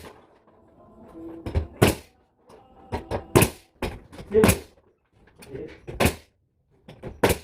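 Sharp bangs and knocks from interior carpentry work on gypsum board and ceiling framing, coming at irregular intervals of roughly one a second.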